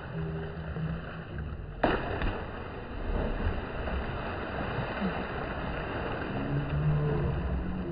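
Water splashing and churning as people bathe in a pool, with faint voices in the background. One sharp knock about two seconds in.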